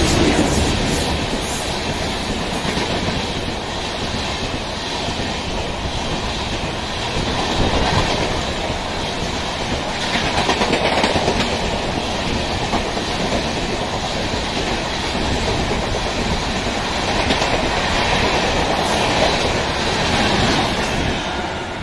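LHB passenger coaches of an Indian Railways express running past at speed: a loud, steady rush of wheel and track noise with a rapid rhythmic clatter.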